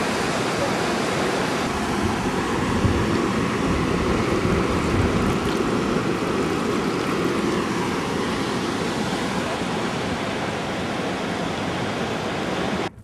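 Steady rush of fast-flowing floodwater from a river in flood, cutting off suddenly near the end.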